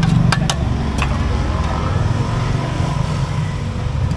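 Steady low rumble of passing road traffic, with three sharp clinks of a metal ladle and aluminium pot lid in the first second.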